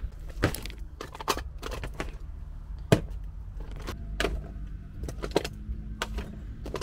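Makeup items clicking and clattering as a hand rummages through a zip-up makeup bag, one sharp click about three seconds in, over a low steady rumble.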